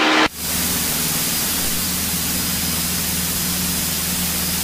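Cessna's single piston engine and propeller at full takeoff power during the climb-out of a touch-and-go, heard inside the cabin as a steady loud rush over a low, even hum.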